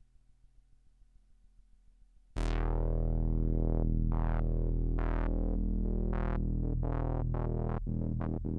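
Korg ARP Odyssey analogue synthesizer: a faint, quickly pulsing low tone, then about two seconds in a loud, sustained buzzy bass note that keeps sweeping bright and back to dull, the sweeps coming faster near the end.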